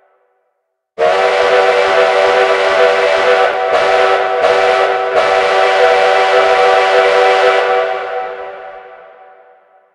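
Sierra Railway No. 3 steam locomotive whistle blowing one long blast, starting abruptly about a second in, with a few brief flickers, and dying away over the last couple of seconds.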